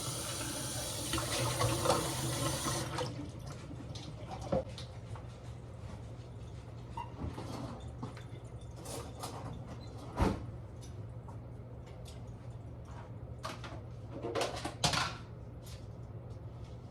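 Water running from a tap, shut off suddenly about three seconds in; then scattered light clicks and knocks of handling, the sharpest about ten seconds in, over a faint steady hum.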